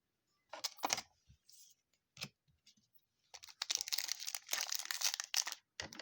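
Plastic trading-card packaging and sleeves being handled: a few sharp clicks and rustles, then about two seconds of dense crinkling and tearing, as a card pack wrapper is worked open.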